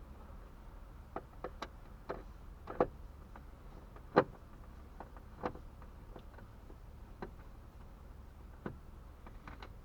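Irregular light clicks and knocks as tools, screws and plastic dash parts are handled, about ten in all, the loudest about four seconds in.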